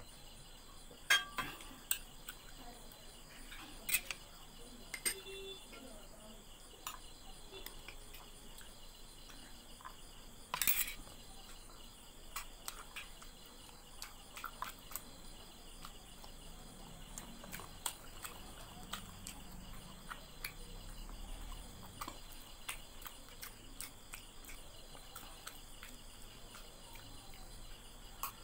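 A few sharp clinks and taps of a glass and dishware, most of them in the first eleven seconds, over a steady chirring of crickets.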